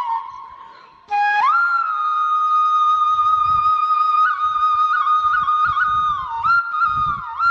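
Background music: a solo flute playing a slow melody of long held notes with quick ornaments. One note fades out and a new phrase begins about a second in.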